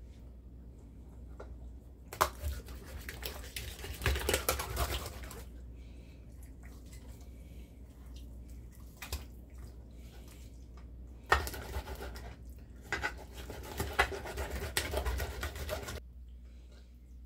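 A knife cutting up a raw whole chicken on a cutting board: two stretches of cutting and pulling, about two seconds in and again about eleven seconds in, each with sharp knocks.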